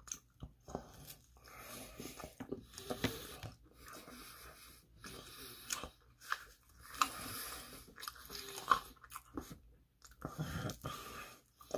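Chewing and biting pizza crust close to the microphone: irregular crunches and mouth sounds with short pauses between them.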